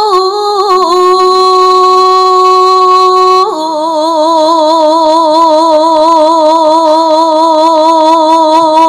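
A solo singing voice holding one long, steady note. About three and a half seconds in, it steps down to a lower note held with a slow vibrato.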